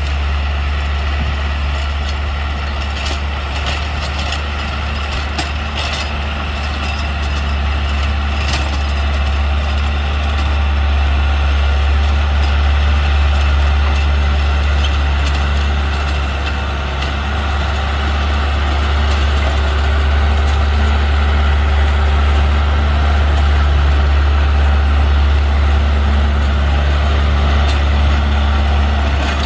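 Diesel engine of a compact tractor running steadily as it pulls a rotary tiller through a field, heard as a deep, even hum. Sharp clicks come and go over the first nine seconds or so.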